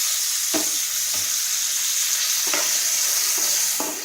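Boiled chickpeas sizzling steadily in a hot oil tempering in a pan, with a few light scrapes of a spoon as they are stirred in.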